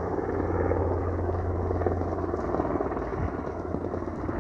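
Helicopter flying over: a steady low rotor drone with a dense chopping rumble above it, the lowest hum easing off about three seconds in.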